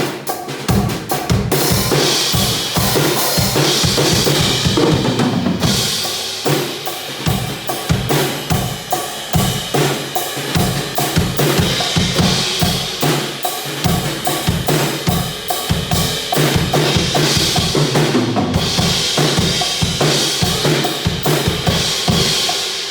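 RMV Crossroad drum kit played continuously: a steady pattern of bass drum and snare hits, with stretches where the cymbals ring out over the beat.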